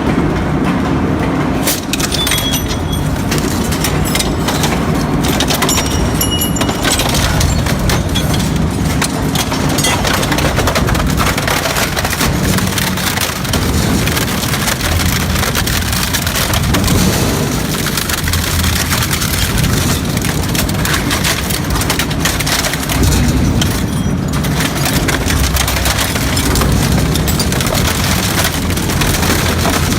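Heavy shredding machine crushing and breaking up material: a dense, continuous grinding noise full of cracking and splintering.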